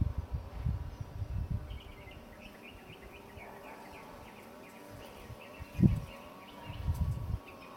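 A flying insect buzzing, its pitch wavering as it moves about, over faint high chirping and low gusts of wind buffeting the microphone. A single low thump comes about six seconds in.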